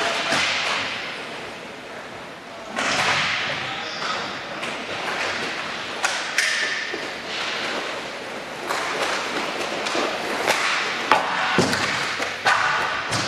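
Inline hockey play on a plastic sport-tile rink: skate wheels rolling and scraping, with scattered sharp clacks of sticks and puck, several of the sharpest near the end.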